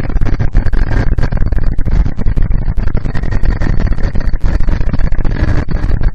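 Loud, choppy wind buffeting on the microphone of a handlebar-mounted camera on a moving motorcycle, mixed with the rumble of the bike's engine and road noise.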